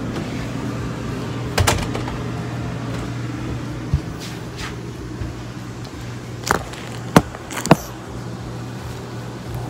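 Steady low hum of an RV air conditioner, with a few sharp knocks and clicks scattered through, the loudest two close together near the end.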